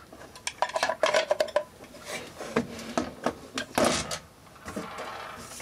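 Irregular clicks and clatter of hard plastic and metal parts as a time switch's faceplate and relay assembly is handled and set down into its case.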